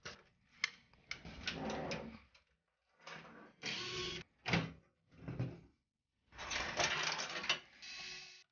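Hardware handling while an EVGA CLC360 all-in-one CPU liquid cooler is taken off a PC: a run of short scrapes, clicks and clatter of plastic and metal parts, in bunches with brief gaps.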